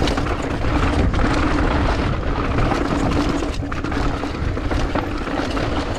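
Wind rushing over the camera microphone and knobby tyres rolling fast over a loose dirt and rock trail, from a GT Fury downhill mountain bike on a fast descent. The noise is rough and steady, heaviest in the low end.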